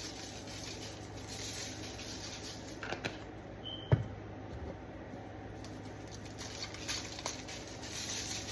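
Kitchen handling noises as food is put into a pan: soft rustling and scratching with a few clicks, a brief squeak and one sharp tap about four seconds in, over a steady low hum.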